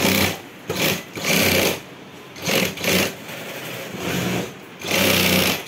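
Industrial sewing machine stitching a nylon school bag, run in about six short bursts and stopped between them as the fabric is guided and turned.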